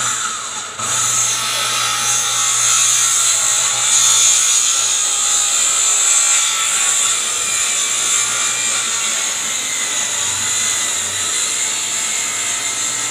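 Handheld electric circular saw starting abruptly, then running steadily under load with a high whine as it rips along a sheet of phenolic-faced plywood.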